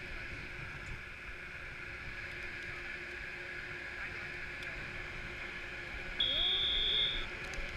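Chairlift terminal machinery running with a steady hum and hiss, and a single high electronic beep lasting about a second near the end.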